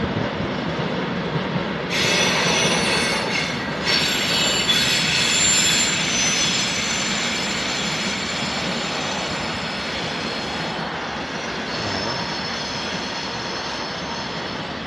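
Freight train of tank wagons rolling past, the wheels running on the rails with a steady rumble. About two seconds in, high-pitched wheel squeal sets in and is loudest a few seconds later, then fades out at around eleven seconds.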